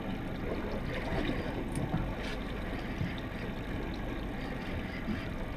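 Steady noise of a center-console fishing boat at sea: its twin outboard motors running slowly, with water washing around the hull.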